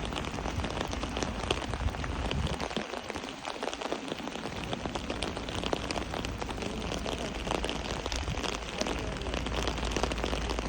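Heavy downpour: steady rain hissing and pattering on surfaces, with many individual drops ticking, over a low rumble that grows stronger near the end.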